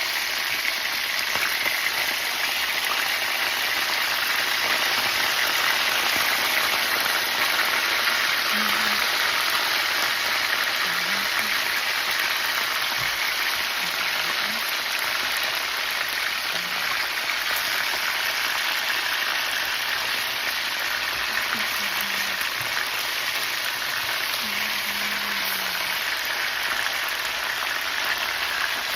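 Tilapia pieces frying in hot oil in a pan, sizzling steadily.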